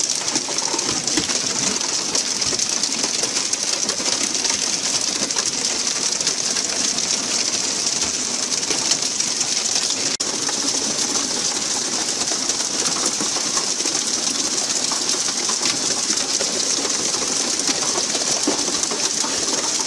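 Steady rushing hiss of water: the spray jets and splashing sea alongside a pole-and-line tuna boat, with a brief dip about halfway through.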